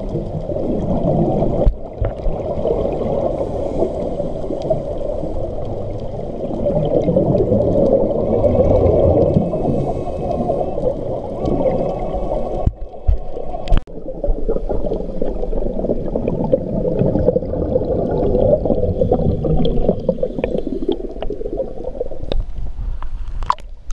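Muffled underwater sound picked up by a camera in a waterproof housing: a dense low rumble of water and rising bubbles, dipping briefly twice, with a few sharp clicks near the end.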